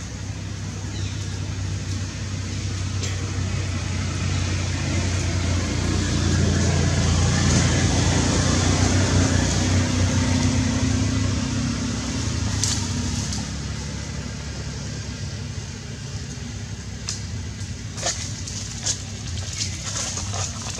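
Low, steady hum of a motor vehicle's engine that swells to its loudest around the middle and then fades, as a vehicle passes. Near the end come a few sharp crackles of dry leaves as macaques walk over them.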